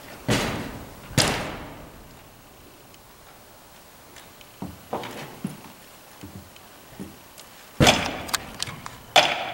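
Ice axes knocking and scraping on artificial climbing holds during a dry-tooling climb: a handful of sharp metallic knocks and scrapes, two loud ones within the first second and a loud cluster near the end, with a quieter stretch between.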